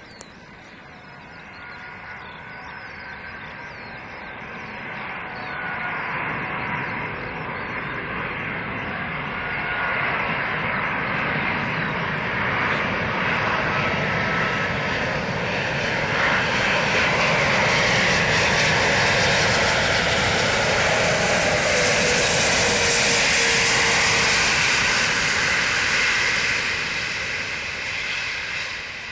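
Airbus A380's four Rolls-Royce Trent 900 jet engines on landing approach and touchdown, passing low: a jet rumble with whining tones that swells steadily over about twelve seconds, stays loud for a long stretch, then falls away near the end.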